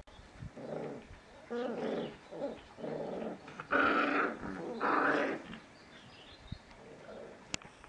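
Bouvier des Flandres puppies growling as they play-fight: a string of short growls, with two louder, higher-pitched cries about four and five seconds in.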